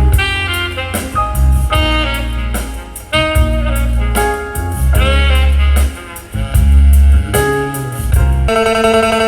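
Music played through a DIY 2.1 Bluetooth speaker box with a 6.5-inch HK subwoofer: a pitched lead melody over heavy, sustained bass notes and steady drum hits, loud throughout.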